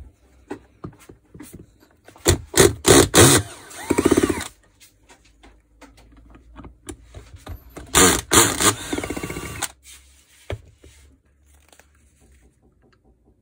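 Makita cordless drill-driver backing out screws from a polisher's gear housing, whirring in two bursts, about two seconds in and again about eight seconds in. Small clicks of metal parts being handled come between the bursts.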